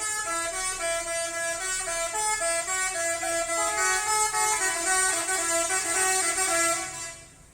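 Indonesian bus 'telolet' multi-tone air horn playing a tune, several horn notes sounding together and stepping from note to note, stopping suddenly near the end.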